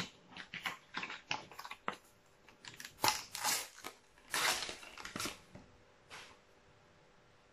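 Panini sticker packet wrapper being torn open and crinkled by hand: a string of short crackles and rustles, loudest around three to five seconds in, stopping about six seconds in.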